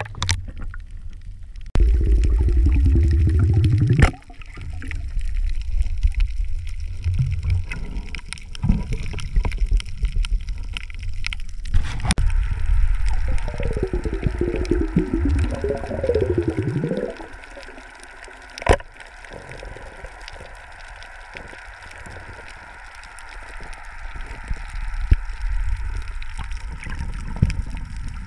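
Water gurgling and sloshing on a submerged camera, with a low rumble. Twice there is a wavering bubbly gurgle, about two seconds in and again midway, and a few sharp clicks stand out.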